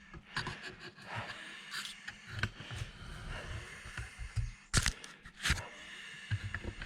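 Workshop handling noises: scraping and rustling with scattered clicks, and two sharp knocks about five seconds in.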